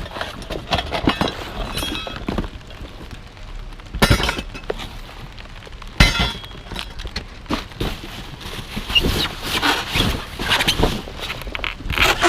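Trash being rummaged and shifted in a dumpster: irregular clattering and clinking of hard objects, with two loud knocks about four and six seconds in.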